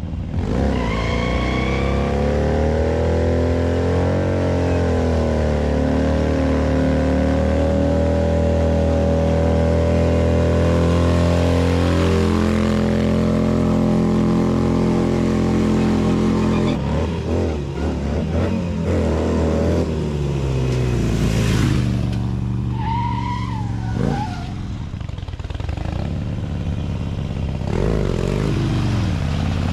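Harley-Davidson motorcycle's V-twin engine held at high revs for about sixteen seconds during a stunt, then revved up and down in shorter bursts, with a brief high squeal about two-thirds of the way through.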